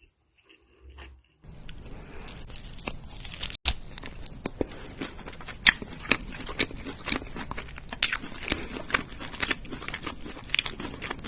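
Close-miked chewing of meat: irregular wet mouth clicks and smacks, starting about a second and a half in.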